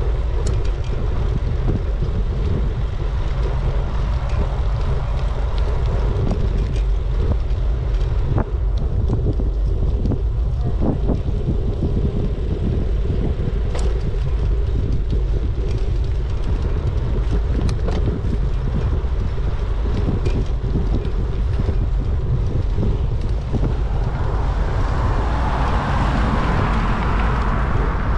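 Wind buffeting a GoPro's microphone while cycling: a steady low rumble with scattered clicks and rattles. A louder rushing hiss swells up about three-quarters of the way through.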